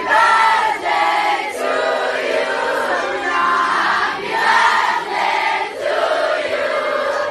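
Concert crowd singing together in unison, many voices holding notes in short phrases of about a second each.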